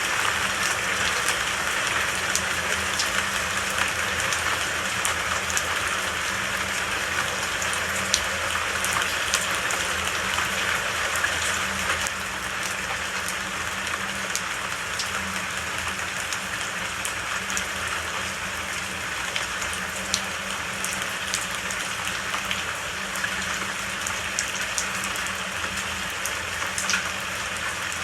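Steady rainfall: an even hiss of rain with scattered sharper drop ticks, easing slightly about halfway through.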